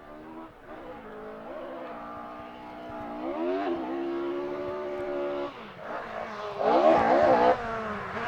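Ford Escort Mk2 rally car's engine accelerating hard through the gears as it approaches and grows louder, the revs climbing and dropping back at each gear change. There is a short lift off the throttle about two-thirds of the way through, then it revs up again.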